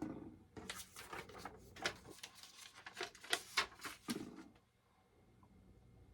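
Handling noise indoors: a quick run of rustles and small clicks, as of parts and packaging being moved about, right after a knock, stopping about four and a half seconds in.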